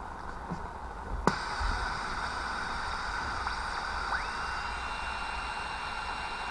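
A sharp click, then steady hiss and static from the Yaesu FRG-7 shortwave receiver's speaker. About three seconds later a whistling tone glides up in pitch and holds steady over the hiss.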